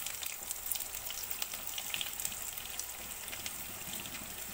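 Sliced white onions sizzling and crackling as they fry in hot oil in a kadai, the start of frying the onions until they colour.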